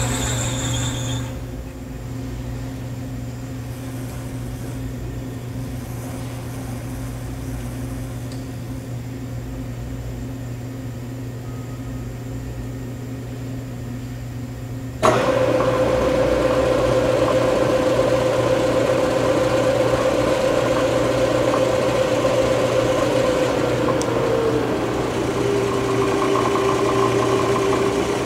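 Bridgeport Series I CNC milling machine: a steady electrical hum, with a high whine that stops about a second in. About halfway through a motor, likely the spindle, starts with a click and runs with a steady whine, whose pitch drops and then rises again near the end as the speed is adjusted at the head.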